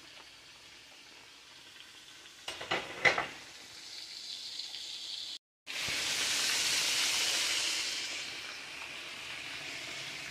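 Pots boiling and hissing on an electric stove, with a wooden spoon stirring and knocking against the pot about three seconds in. After a brief break a little past halfway, a louder hiss from a pot of rice at a rolling boil, easing off toward the end.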